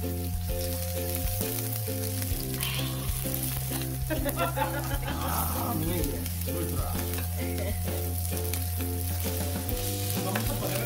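Slices of pork belly sizzling on a griddle pan over a portable gas stove, a steady frying hiss. Background music with a repeating beat and bass line plays under it.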